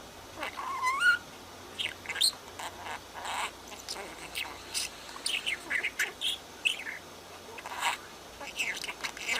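Budgerigar chattering: a busy run of short chirps, warbles and squawks, with a rising whistle about a second in.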